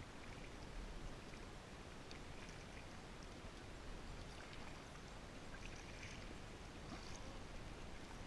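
Faint water sounds from a kayak on the water: a few soft splashes and trickles, as from paddle strokes, over a steady low rumble.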